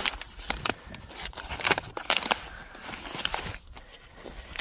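Rummaging through a tool kit: irregular clicks, knocks and rustles of tools and bag being handled.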